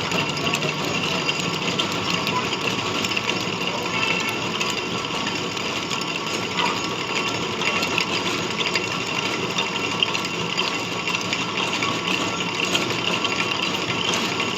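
Metal lathe running steadily, its motor and gears giving an even mechanical whir with a light rattle.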